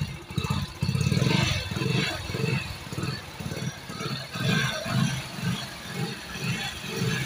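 Hero Splendor Plus single-cylinder four-stroke motorcycle engine running at idle, its sound swelling and easing unevenly. It is being test-run after new piston rings and a rebuilt head were fitted to cure white exhaust smoke.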